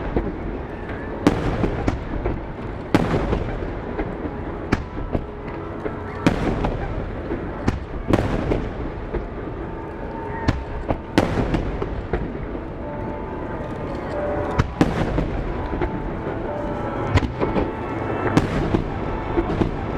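Aerial firework shells bursting in a fireworks display synchronised to music, about a dozen sharp reports one every second or two, each trailing off. The show's music soundtrack plays underneath.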